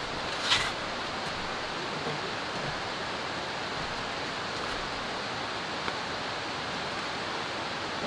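Steady, even rush of water from light drizzle and a nearby forest stream. A brief sharp scuff stands out about half a second in.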